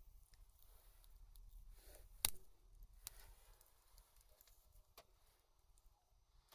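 Near silence broken by a few sharp clicks, the loudest about two seconds in.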